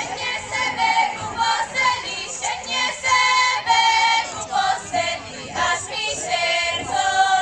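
A group of women singing together in Slovak folk style, the song of a karička, the eastern Slovak women's circle dance that the dancers sing themselves.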